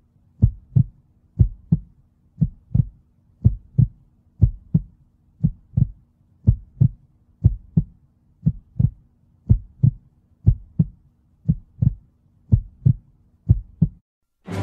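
Heartbeat sound effect: a steady double thump, about once a second, over a faint low hum. It stops about a second before the end.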